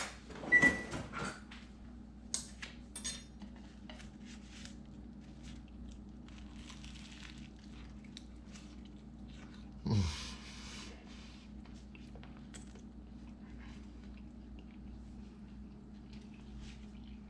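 A spoon and dishes clinking in a few sharp clicks, then a steady low hum in a small room. About ten seconds in, one short louder sound drops steeply in pitch.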